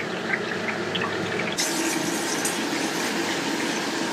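Fruit cooking in a pan on the stove: a steady hiss with faint scattered crackles. About one and a half seconds in, the hiss turns brighter and louder.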